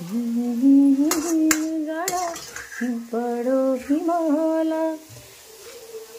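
A woman humming a folk tune in long held notes, with a metal spatula clinking against a kadhai three times in the first two seconds.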